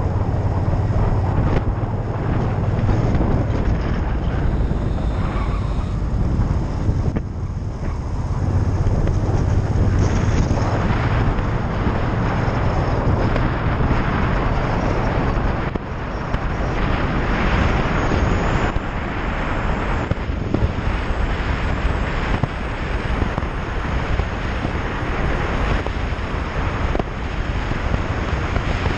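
Motorcycle engine running under way, with strong wind rush on the microphone.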